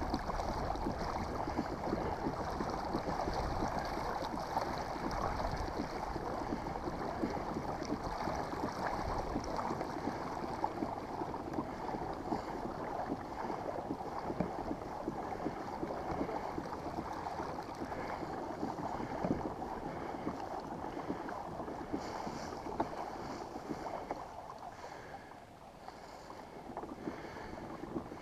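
Water rushing steadily past the hull of a Hobie Outback pedal kayak being pedalled hard, with some wind on the microphone; it eases off near the end.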